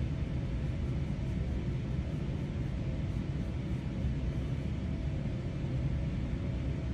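Steady low rumble of room background noise.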